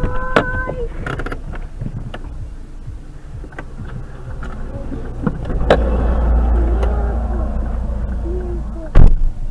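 Sound inside a car halted behind a collision, picked up by its dashcam: scattered knocks and clicks over a low rumble that swells louder about halfway through, then a loud thump near the end.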